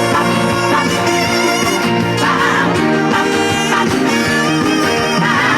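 Instrumental introduction of a trot song's backing track played over a PA, a melody with vibrato over held chords and a steady bass line.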